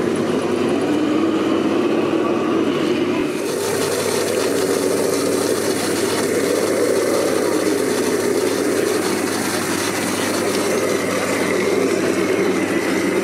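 A steady engine-like mechanical drone with a wavering hum, and a faint rising whine near the end.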